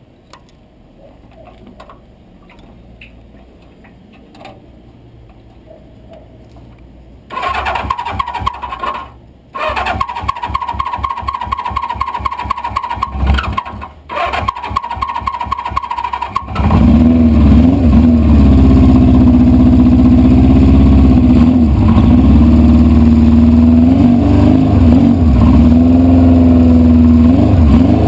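1973 Honda CB500 Four's air-cooled inline four being started: the electric starter cranks in three tries with short pauses, and the engine catches about 16 seconds in and settles into a loud, steady idle with slight dips in speed.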